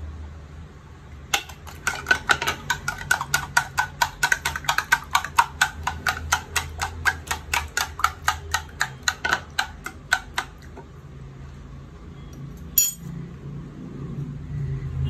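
Eggs being beaten with a spoon in a plastic bowl: a fast, even run of clinks, about four or five a second, that stops about ten seconds in. One more knock follows a couple of seconds later.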